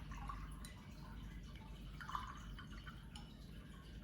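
Aquarium running in the background: water trickling and bubbling steadily over a low hum.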